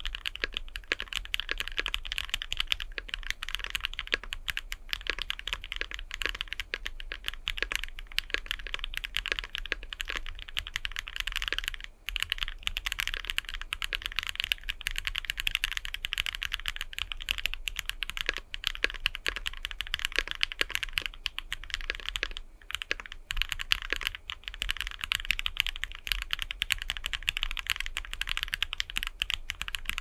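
Steady fast typing on a mechanical keyboard fitted with lubed Gateron Vermilion Bird linear switches on the letter keys and a lubed JWK Cobalt Blue switch under the spacebar: a dense run of keystroke clacks, broken by a couple of brief pauses.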